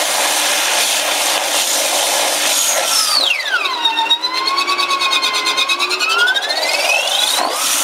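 Rice milk grinding machine running with a steady hiss as soaked rice is fed in. About three seconds in, a loud squeal drops steeply in pitch, then climbs slowly back up over about four seconds and stops near the end; the rice is going in too fast for the water, which is still too little.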